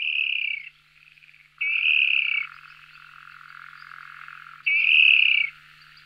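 An animal calling three times: loud calls, each just under a second long and dipping in pitch at the end, about a second and a half and then three seconds apart, with a fainter rough call in between.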